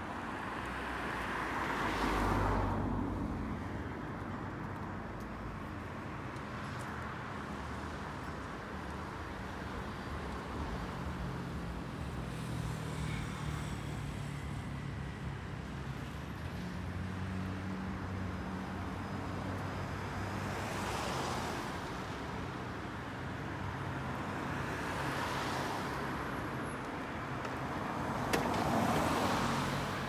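Road traffic: cars passing by one after another, with four clear pass-bys swelling and fading, the first about two seconds in and the last near the end. A low engine drone runs in between.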